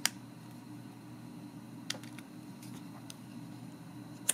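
Small sharp clicks of a laptop spacebar keycap and its wire support being handled and clipped together: a loud click at the start, another about two seconds in, two faint ticks, and a loud click at the end, over a low steady hum.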